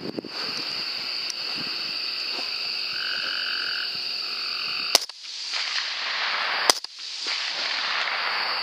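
Two rifle shots about a second and a half apart, the second of them a little under two seconds before a third right at the end, over a steady high-pitched night chorus.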